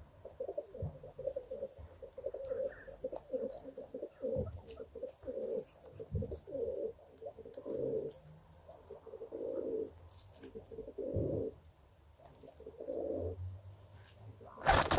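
Feral pigeons cooing, a string of low coos about once a second. A sudden loud noise comes in right at the very end.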